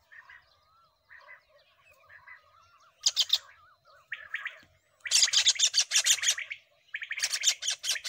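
White-throated kingfisher tangled in a net, giving harsh screeching calls in bursts: a few faint calls at first, then loud ones from about three seconds in, the longest lasting nearly two seconds. These are the distress calls of a trapped bird.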